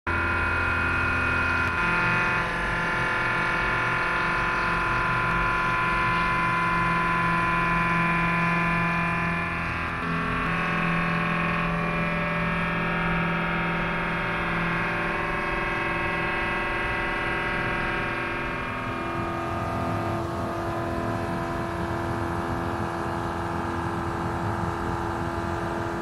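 CNC milling machine cutting a steel crankshaft: a continuous machine whine made of several steady tones that jump to new pitches every few seconds.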